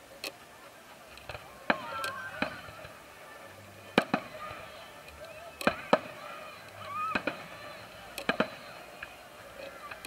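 Fireworks going off: about ten sharp bangs of rockets and bursting shells, several coming in quick pairs.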